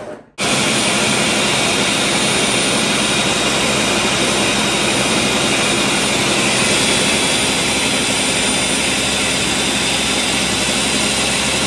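Ninja countertop blender running steadily, grinding chunks of hard coconut with water into smooth coconut milk. The motor starts abruptly about half a second in.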